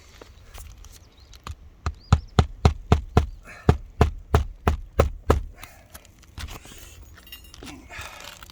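Claw hammer driving a roofing nail through a replacement asphalt shingle into the roof deck: a quick run of sharp blows, about four a second, for roughly three seconds starting about two seconds in, after a few lighter taps to set the nail.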